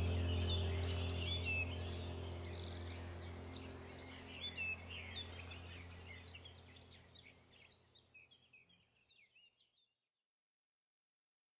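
Birds chirping and singing over a low steady drone. The whole mix fades out gradually to silence near the end.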